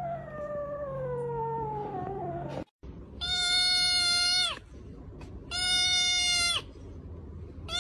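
A cat's long call sliding down in pitch, then after a sudden cut a tabby kitten crying out in long, steady-pitched meows, twice, with a third starting at the end, as a finger presses on its head.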